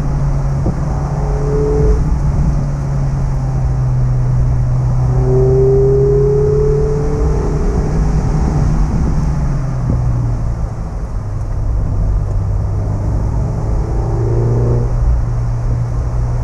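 Mazda MX-5 ND's 1.5-litre four-cylinder engine with stock exhaust running under steady part throttle while driving, its drone dropping in pitch about ten seconds in and climbing again a few seconds later. A faint rising whine comes through around five to seven seconds.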